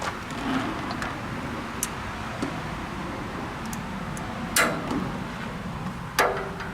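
Metal tools and brake parts knocking together during hand work on a tractor's rear brake assembly: a few light ticks, then two sharp metallic knocks, the second ringing briefly, over a steady background hiss.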